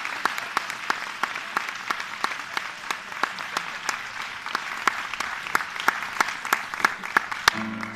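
Concert audience applauding, a dense patter of many hands clapping that thins out and dies away near the end.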